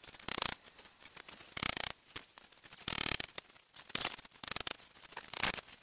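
Kitchen knife cutting peeled raw potatoes into small pieces on a wooden cutting board: irregular chops, the blade knocking through the potato onto the board.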